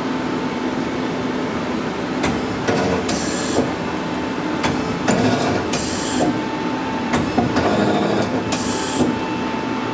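Daewoo Puma 10HC CNC lathe's tool turret indexing three times, each index a clack and knock followed by a short hiss. The machine's steady hum with a constant whine runs underneath.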